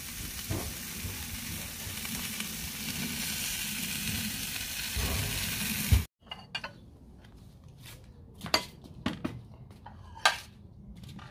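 Steaks sizzling on a charcoal barbecue grill, a steady hiss that cuts off suddenly about six seconds in. After it come a few sharp clinks of plates and cutlery.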